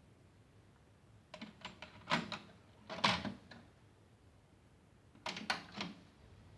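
Marantz SD-72 cassette deck being operated by hand: its mechanical transport and controls click and clunk in three short clusters, about a second and a half in, around three seconds in, and again near the end.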